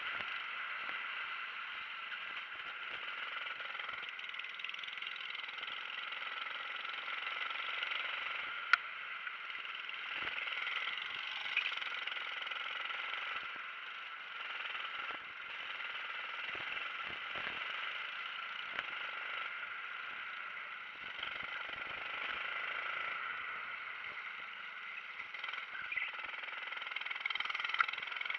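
Kart engine running steadily at racing speed, picked up by an onboard camera, with rushing wind mixed in. A single sharp click comes a little under nine seconds in, and a few lighter knocks come near the end.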